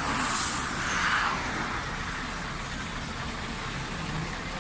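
Heavy diesel truck engine idling steadily, with a brief hiss in the first second.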